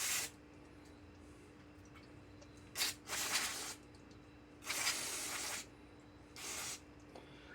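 Aerosol carburetor cleaner sprayed into a chainsaw carburetor in four short hissing bursts, to flush out its fuel passages.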